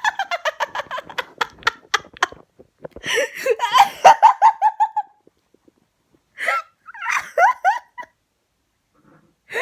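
Silly, laugh-like vocal noise from a person: a fast run of short pitched yelps or hoots at about six a second, a second run three to five seconds in, and a few more near the end.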